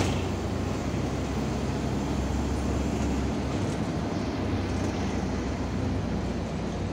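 Bus engine drone and road noise heard from inside the moving bus's cabin, a steady low hum under an even rushing noise; the lowest drone eases off about three seconds in.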